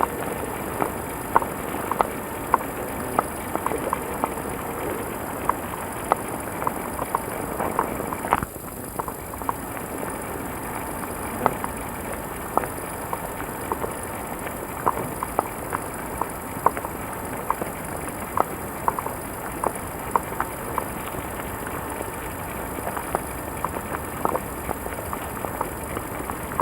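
Footsteps on the forest floor, an uneven run of short crunches and clicks one or two a second, over the steady hiss and hum of a camcorder's built-in microphone. The background noise shifts briefly about eight seconds in.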